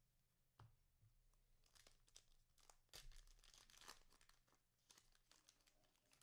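Faint crinkling and tearing of a 2020 Prizm cello pack's cellophane wrapper being ripped open, with a run of crackles about two to four seconds in.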